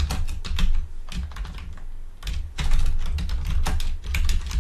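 Typing on a computer keyboard: quick runs of key clicks, with a short pause a little after halfway.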